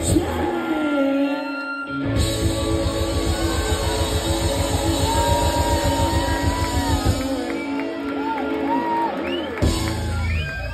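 Live rock band playing with a singer and electric guitar. The bass and drums drop out briefly, then come back about two seconds in with a fast, driving beat.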